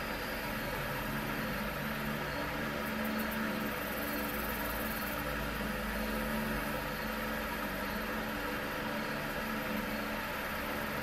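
Steady mechanical whir and hum with an even hiss over it, unchanging throughout.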